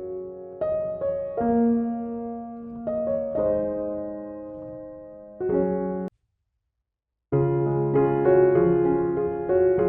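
Slow, soft piano background music with notes struck and left to fade. It cuts out completely for about a second just past the middle, then comes back.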